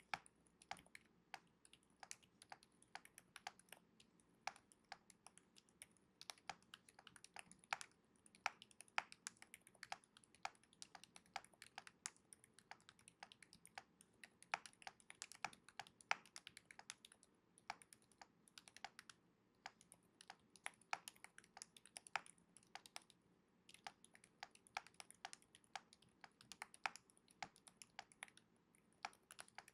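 Typing on a Keychron J5 TMR full-size keyboard with pre-lubed Silent Red magnetic linear switches and double-shot PBT OSA-profile keycaps. The keystrokes are quiet and come in an irregular typing rhythm, with a few short pauses.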